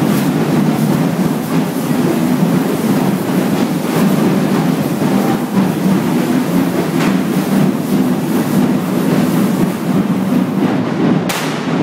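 Loud, continuous din of a street parade going past, with a sharp bang near the end.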